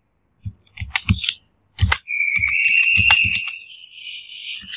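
Computer keyboard typing: a series of separate keystroke clicks and thumps as a search term is typed. From about halfway through, a loud, steady high-pitched buzz sounds over the typing and fades near the end.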